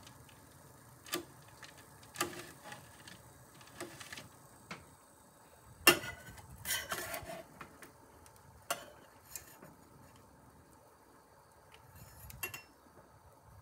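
Metal spatula clicking and scraping against a metal baking tray and its parchment paper while mini pizzas are lifted to check whether they are baked, in scattered light knocks with the loudest about six seconds in and a short scrape after it.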